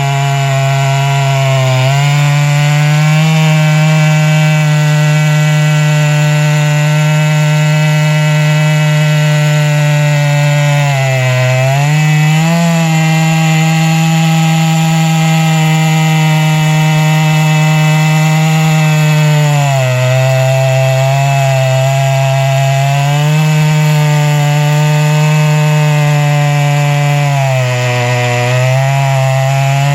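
Chainsaw on a chainsaw mill running near full throttle while ripping a log lengthwise, a steady high-revving drone. The revs sag briefly three times, about eleven, twenty and twenty-eight seconds in, as the cut loads the saw.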